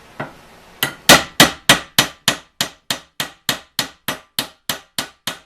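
Hammer blows driving a steel pin through a Model T Ford pedal: one light tap, then a steady run of about sixteen sharp metal strikes, roughly three a second, loudest at first and getting slowly softer.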